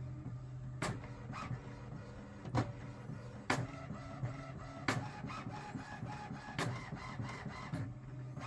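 HP OfficeJet 4520 inkjet printer printing an alignment page after new ink cartridges were installed. The mechanism whirs over a steady low hum, with a sharp click every one to two seconds.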